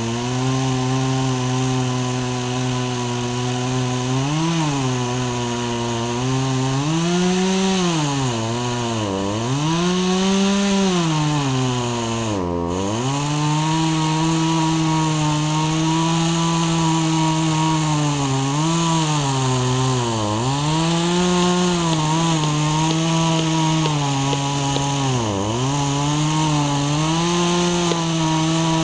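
Chainsaw engine running hard under load, its pitch sagging sharply and picking back up again and again as the chain bites into wood.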